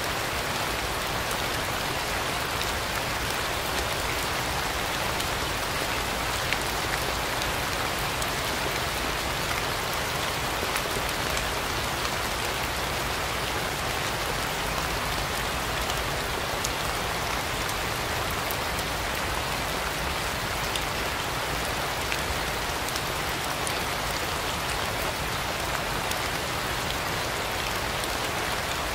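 Steady rain falling, an even hiss with faint scattered drop ticks and no thunder.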